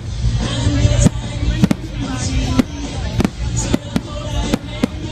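Fireworks going off in a string of sharp, uneven bangs, about two a second, over loud music with a heavy bass.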